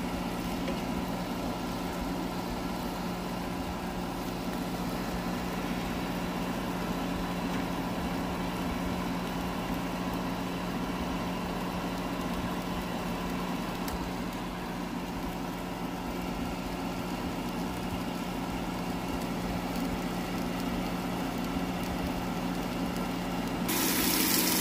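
Air fryer's fan motor running with a steady hum. About a second before the end, a loud rush of running water starts.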